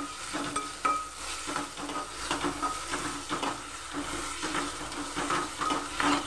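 Steel spoon scraping and knocking against a steel kadhai in quick, irregular strokes while stirring chopped vegetables frying in oil, each knock leaving a short metallic ring, over a light sizzle. The vegetables are being lightly fried, only half-cooked.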